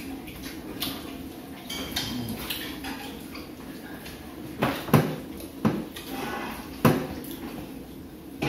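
Spoons and forks clinking and scraping against ceramic plates and bowls while people eat, with a few sharp clinks about halfway through and another near seven seconds in.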